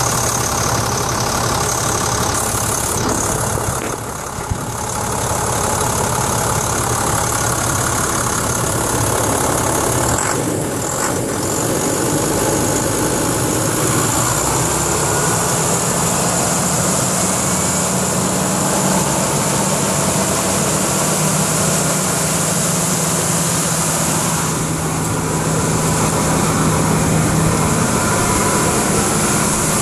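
International DT466E inline-six turbo diesel engine running steadily.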